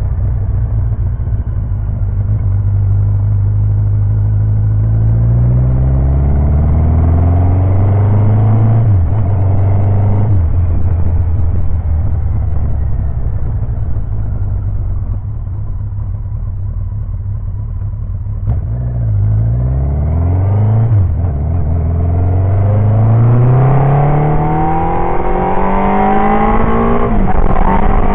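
Kawasaki 1000GTR's inline four-cylinder engine under way, recorded from a camera mounted on the motorcycle. Its pitch holds steady at first, then climbs slowly as the bike accelerates and drops suddenly at a gear change about nine seconds in. It eases off to a quieter, lower note for several seconds, then climbs again in a long pull with another shift near the end.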